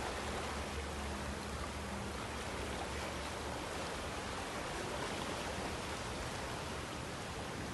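Small cruise boat underway: a steady rush of water and wind, with a low engine drone underneath.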